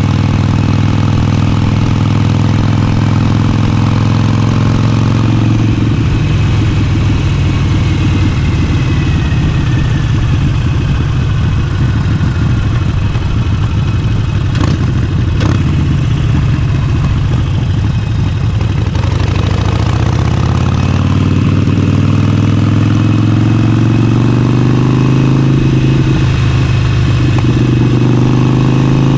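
Harley-Davidson Forty-Eight's air-cooled 1200 cc V-twin, fitted with an aftermarket exhaust, running under way. The revs ease off and fall through the middle, with two sharp clicks, then climb steadily as the bike accelerates over the last third.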